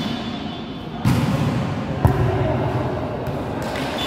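Volleyball rally in a large, echoing sports hall: one sharp smack of the ball being hit about two seconds in, after the general noise rises about a second in.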